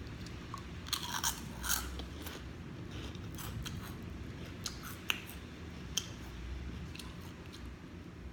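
Close-miked biting, chewing and crunching of crisp food, with a cluster of sharp crunches about a second in and single crunches around five and six seconds.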